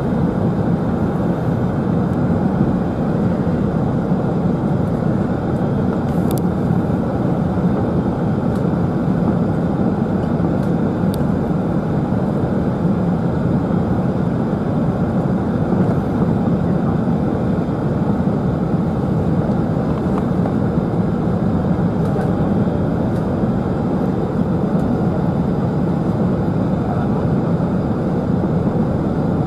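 Steady, loud cabin noise inside a British Airways Airbus A380-841 on approach: the rumble of its Rolls-Royce Trent 900 engines and the rush of air over the fuselage, heard from a window seat by the wing.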